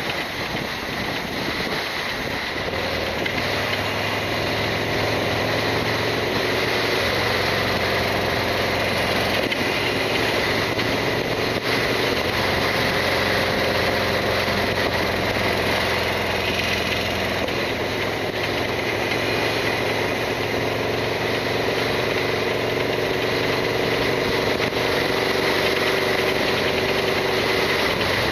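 Harley-Davidson Sportster XL1200R's air-cooled V-twin engine running steadily under way, its pitch drifting slowly up and down.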